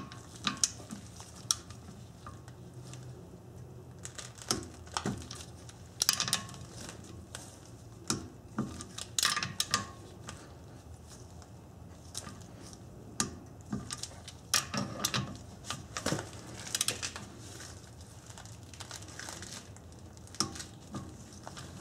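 Torque wrench and socket tightening the hub-to-rotor bolts on a Honda Accord front hub: irregular metallic clicks and clatter from the ratchet and socket, as each bolt is brought to 40 foot-pounds in a crisscross pattern.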